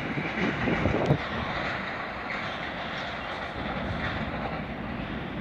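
Freight train's wagons rolling along the rails: a steady rumble and rattle, with a sharp click about a second in.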